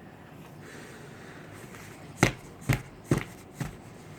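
Four sharp knocks, about half a second apart, over faint room hiss.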